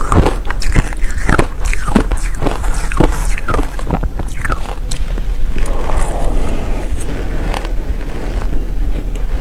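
Biting and crunching mouthfuls of powder-coated shaved ice: a quick run of sharp crackling crunches, then a softer, grainy stretch about six seconds in.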